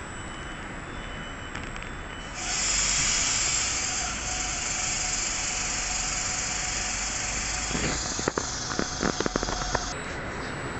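Loud, steady hiss of compressed air venting from a standing electric train's pneumatic system, starting about two seconds in and stopping shortly before the end, with a quick run of clicks just before it stops.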